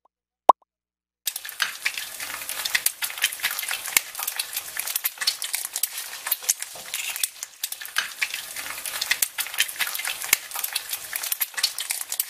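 Short electronic beeps, then after about a second of silence a dense, irregular crackling like static, made of many small clicks.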